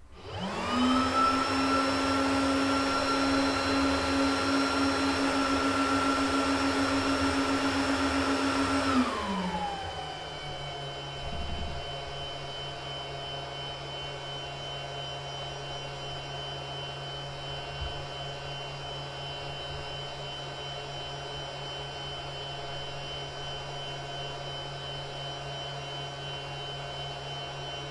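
Juniper EX3300-48T network switch's cooling fan spinning up to full speed with a loud whine at power-on. About nine seconds in, it slows down to a quieter steady hum as the switch boots.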